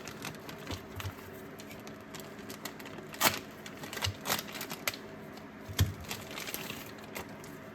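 Scattered light clicks and rustling from a socket set and its packaging being handled, with a few sharper clicks about three, four and six seconds in.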